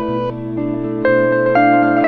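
Solo guitar music: plucked notes left to ring and overlap, with a new note or chord coming in a few times.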